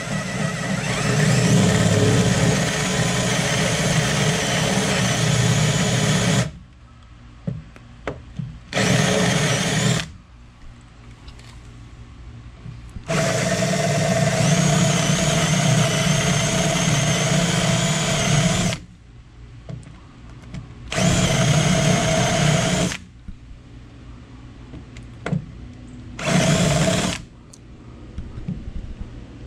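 Bosch cordless drill spinning a Forstner bit into plywood, boring bolt holes. It runs in five bursts of one to six seconds, with short pauses between.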